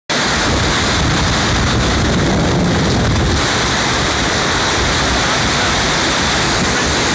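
A mountain burn in spate with thawing snowmelt, rushing loudly and steadily over rocks close by.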